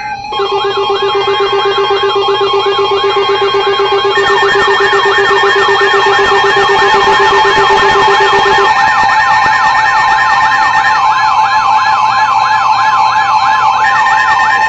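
Emergency Alert System attention signal, loud: steady alarm tones held throughout, overlaid with a fast warbling siren tone that rises and falls about three to four times a second. One low steady tone drops out about nine seconds in. The alert precedes a tornado warning broadcast.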